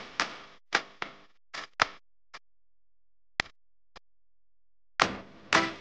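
Background music made of sharp, irregularly spaced struck hits, each ringing briefly, with short gaps between them.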